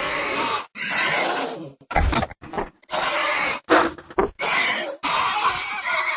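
Gallimimus dinosaur sound effects: a string of about eight separate raspy animal-like calls, some long and some short and sharp, with brief silences between them.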